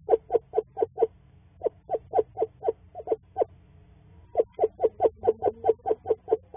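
Female eastern screech owl giving courting calls at close range inside her nest box: short notes of one steady pitch, about four a second, in three runs with brief pauses between them.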